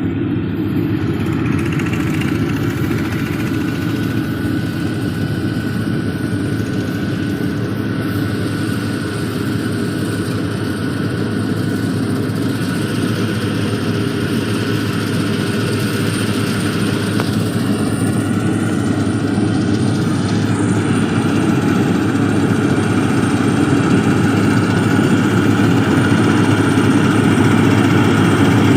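Combine harvester engine and machinery running steadily, growing a little louder over the last several seconds.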